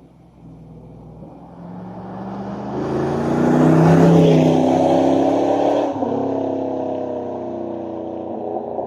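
A motor vehicle passing by: its engine grows louder to a peak about four seconds in, then slowly fades away.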